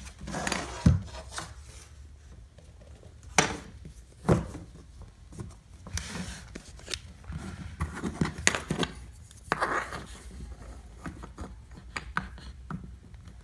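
Hard-foam quarter round trim being handled and set into place against a baseboard and floor: several sharp knocks and clicks, with light rubbing and scraping between them.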